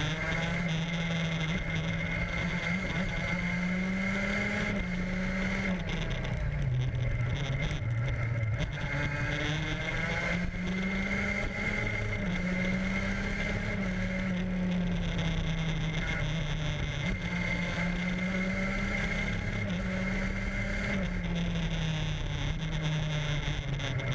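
A vehicle's engine heard from an onboard camera at speed on a race track, its pitch climbing and dropping several times as it is driven through the corners and straights, over a steady rush of wind and a thin high whine.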